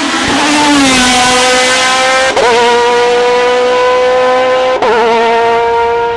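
Hill-climb race car engine running at high revs under hard acceleration, with two quick upshifts about two and a half seconds apart, fading near the end as the car moves away.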